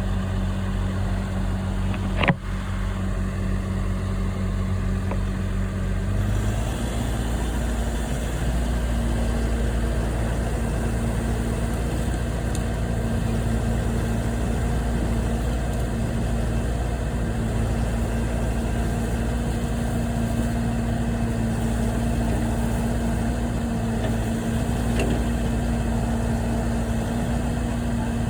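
Heavy equipment engine running steadily, stepping up to higher revs about six seconds in as the machine works the debris pile. There is a sharp knock about two seconds in.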